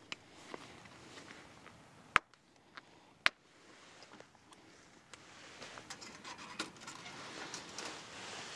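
Faint rustling and scraping of gear being handled in dry leaf litter, with two sharp clicks a little over a second apart about two seconds in.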